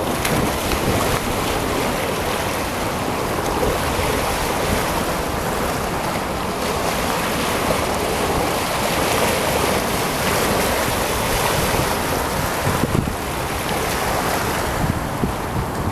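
Steady wash of wind buffeting the microphone over waves lapping on open water.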